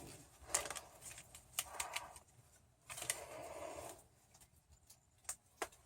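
Faint handling noises: scattered light clicks and knocks with short bursts of rustling, and a scratchy stretch lasting about a second around three seconds in.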